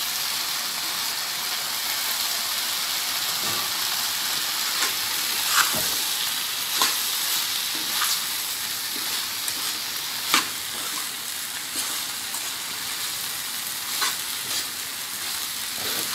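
Poha (beaten rice flakes) being stirred into sizzling fried capsicum, onion and tomato in a frying pan with a steel slotted spoon: a steady frying hiss, with the spoon scraping and clicking against the pan every second or two.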